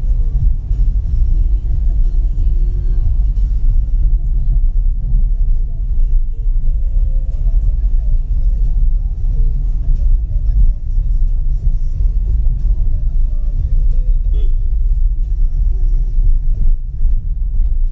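Steady low rumble of a vehicle on the move: road and wind noise.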